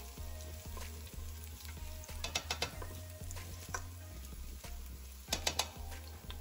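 Minced garlic sizzling in hot oil in a stainless steel pot while it is stirred with a spoon, which clicks and scrapes against the pot in two short bursts, about two seconds in and again about five seconds in.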